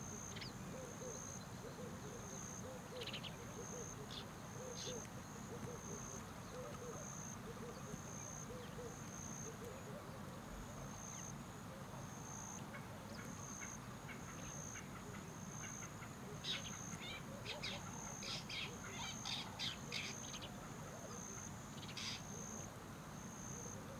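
Nature ambience: an insect trilling in steady pulses about once a second, with scattered short bird chirps that are busiest about two-thirds of the way through.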